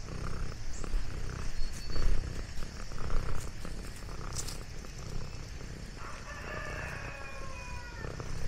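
Orange tabby cat purring steadily while being stroked, with light rustling in the grass. About six seconds in, a drawn-out animal call with a slightly falling pitch sounds for some two seconds.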